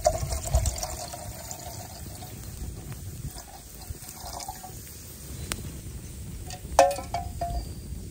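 Water being poured into a metal canteen, trickling with a pitched filling tone that stops about a second and a half in. A few short high squeaks come about seven seconds in.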